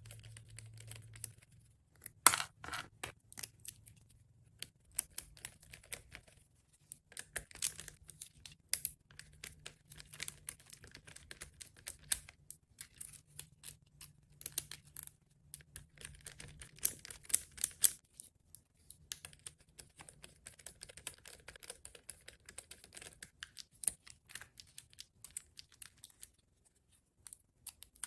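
Irregular small clicks, taps and scraping of wires and connectors being handled and pushed onto the terminals of a relay, with a faint steady low hum underneath.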